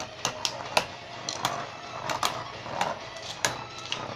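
Two Beyblade Burst spinning tops whirring in a plastic stadium and clashing, with about a dozen sharp plastic clacks at irregular intervals as they hit each other.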